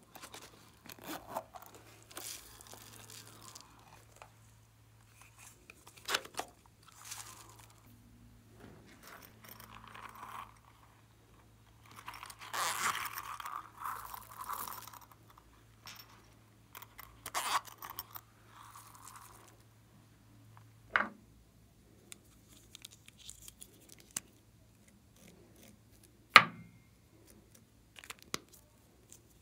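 Hands squeezing and handling plastic slime-add-in containers and clay over a glass dish of slime and foam beads: irregular crunching and scraping squishes, with two sharp clicks in the second half.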